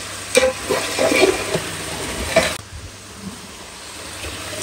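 Chicken and potato masala sizzling in a cooking pot, with a spoon stirring and knocking against the pot; the sizzling drops off suddenly about two and a half seconds in.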